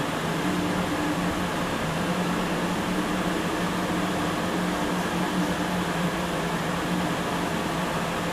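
Steady mechanical hum aboard a loaded bulk carrier, with a constant low drone under an even rushing noise.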